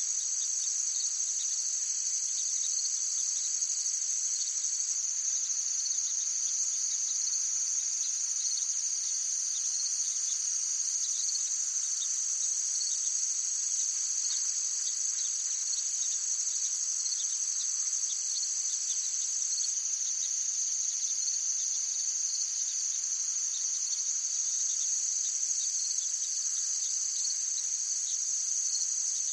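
Forest ambience of a dense insect chorus trilling steadily at several high pitches at once, with faint quick chirps underneath.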